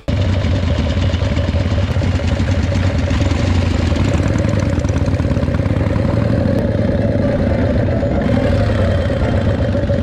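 Harley-Davidson Panhead V-twin engine of a chopper running steadily at low road speed as the bike is ridden, a continuous beat of exhaust pulses.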